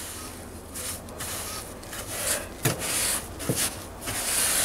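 Paintbrush scrubbing paint onto rough, weathered wooden wall boards: a run of irregular scratchy brush strokes, with two short knocks of the brush against the wood in the middle.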